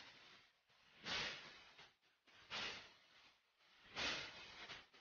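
Whoosh sound effects of an animated logo intro: three soft airy swells, about a second and a half apart, each rising and fading within a second.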